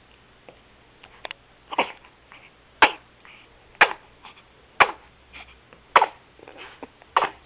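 A baby sneezing again and again in a quick string, with short, sharp sneezes about a second apart.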